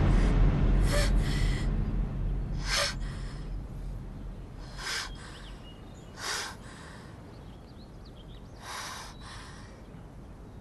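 A young woman crying in short, gasping sobs, several of them spaced a second or more apart. A deep rumble fades out over the first few seconds.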